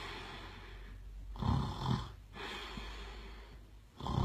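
A man snoring in his sleep: a rough snore about a second and a half in and another near the end, with long breathy breaths between.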